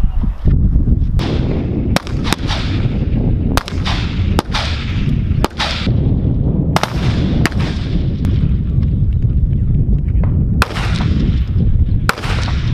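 CZ BREN 2 assault rifle gunfire on an open range: about a dozen single shots at uneven intervals, each followed by a long echo, with a pause of a few seconds partway through, over a steady low rumble.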